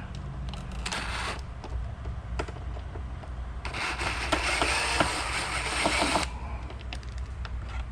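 A Phillips screw being backed out with a hand bit driver: a brief scrape about a second in, then a couple of seconds of scraping with small clicks as the screw turns out, over a steady low hum.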